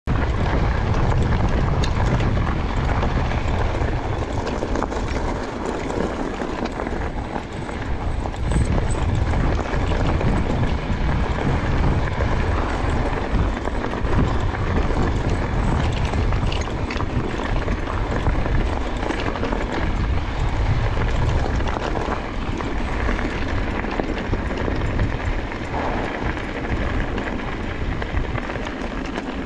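Mondraker Crafty electric mountain bike rolling along a loose gravel track: a steady crunch of tyres on gravel, with a low, gusting rumble of wind on the microphone.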